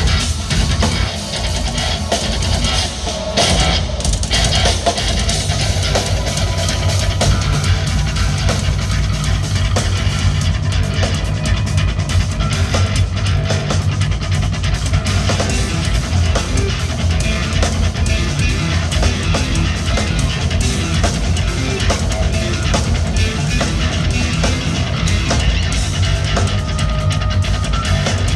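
Live instrumental progressive metal played by a band: electric guitars and drum kit, loud and continuous with a heavy low end.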